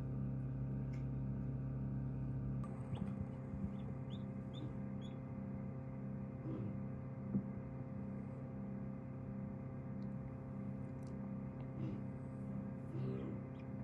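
Newly hatched ducklings giving a few short, high peeps, several in a quick run about four seconds in and more later, over the steady hum of the egg incubator.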